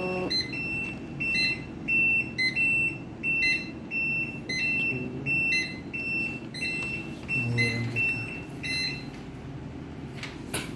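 Steelco steam sterilizer's buzzer beeping, a short high beep about twice a second that stops about nine seconds in, signalling the completed cycle. A low steady hum runs underneath.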